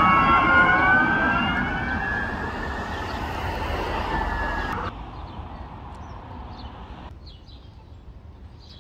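Sirens of an ambulance and an emergency response vehicle wailing together, their pitches sliding up and down and growing fainter. About five seconds in the sirens drop away, leaving faint road noise and a few bird chirps.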